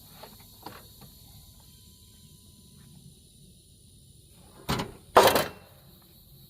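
Two loud knocks close together about five seconds in, after a few faint clicks near the start, over a steady high-pitched outdoor hiss.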